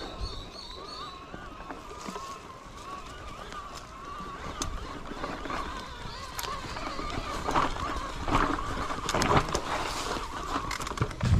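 Wind rushing over the microphone of a moving rider, with road noise and a wavering whine underneath, growing louder and rougher in the second half.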